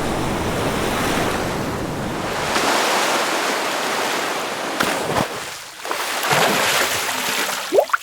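Ocean surf: waves washing in as a loud, even rush of noise that dies down briefly about six seconds in and builds again.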